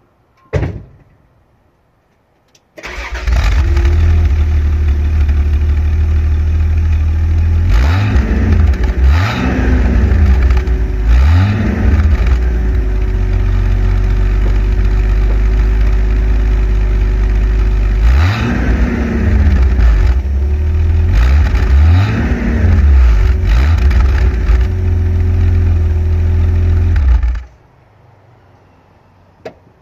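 A 1982 Toyota Cresta GX51's 1G-EU straight-six, heard at the tailpipe, starts about three seconds in and idles, with about six quick throttle blips that rise and fall in pitch, then is switched off suddenly near the end. A short knock comes just under a second in, before the start.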